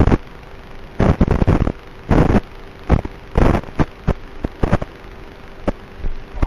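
Irregular bursts of crackling static over a faint steady hum and hiss, from the analog FPV video receiver's audio channel. There is no motor or propeller whine.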